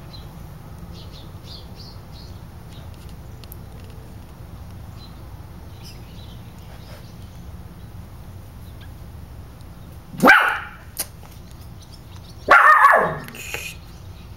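A dog barks twice, loud and a couple of seconds apart, each bark dropping in pitch; the second is longer.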